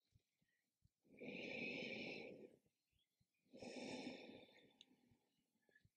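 A woman breathing after repeated jumping: two slow, soft breaths, each about a second and a half long, with a pause between them, as she rests with her head down.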